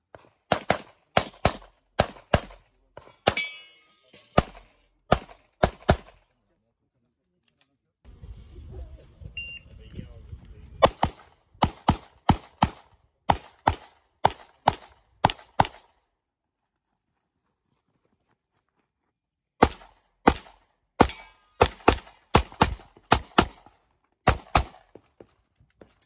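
9mm competition pistol shots fired in rapid strings, about two a second, in three runs with pauses between them. A low rumbling noise fills part of the first pause.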